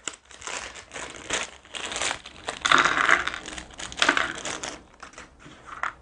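A thin plastic bag crinkling as it is opened and handled, with light clicks and clatter of small plastic board-game miniatures. The sound is irregular and loudest around the middle.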